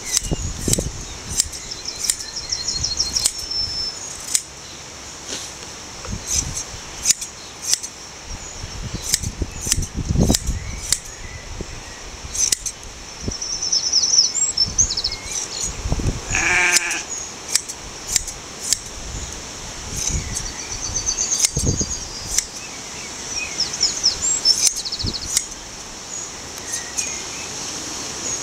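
Hand blade shears snipping through a Shetland sheep's fleece, a sharp click with each cut, repeated irregularly. Small birds twitter throughout, and a sheep bleats once a little past halfway.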